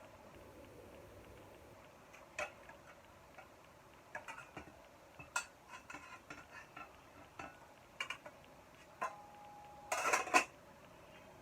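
Scattered light clicks and clinks of small objects being handled, irregular rather than rhythmic, with a brief squeak-like tone and then a short, louder clatter near the end.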